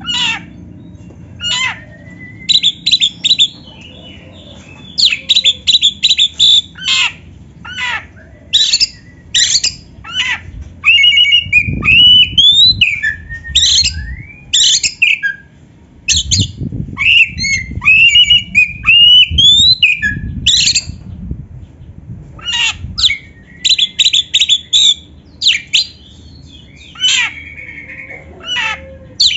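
Oriental magpie-robin (kacer) singing: fast runs of sharp, harsh repeated notes, broken in the middle by whistled phrases that rise and fall, with a low rumble under that middle stretch.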